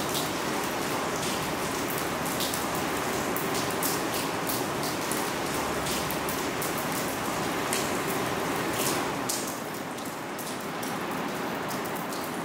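Storm rainwater leaking through a building's roof, dripping and splashing onto a waterlogged carpet and puddle over a steady rush of heavy rain; the drips are many and sharp at first and the sound grows a little quieter about nine seconds in. The leak comes from roof drains that have failed or clogged.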